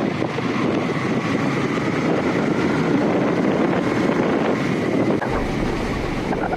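Yamaha MT-15 motorcycle running on the move, its engine buried in heavy wind noise on the microphone. A deeper low rumble comes in about five seconds in.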